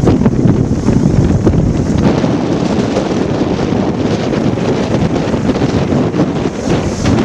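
Strong, gusty storm wind buffeting the microphone, making a loud, low, rumbling rush that rises and falls with the gusts.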